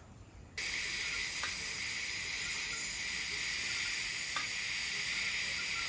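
TIG (GTAW) welding arc striking about half a second in, then hissing steadily as the root pass is run on carbon steel pipe, with a few faint ticks.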